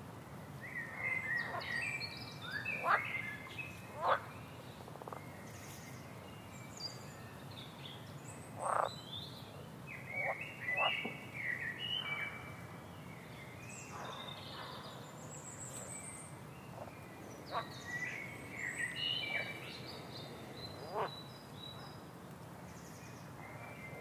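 Outdoor nature ambience of birds chirping and calling, with short frog calls scattered among them, over a steady low background noise. The calls come irregularly, a few at a time, with a quicker run of high rising notes about midway.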